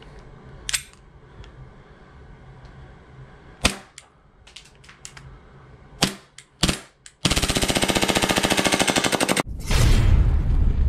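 Elite Force Glock 18C gas airsoft pistol firing: four single shots spaced a second or more apart, then a rapid full-auto burst lasting about two seconds. Near the end a loud, deep rumble takes over.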